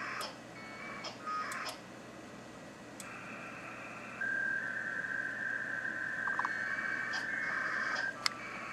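Amateur packet radio data heard from the transceivers' speakers: short bursts of two-tone modem warble, then a longer steady tone from about four to eight seconds in, with a few sharp clicks between.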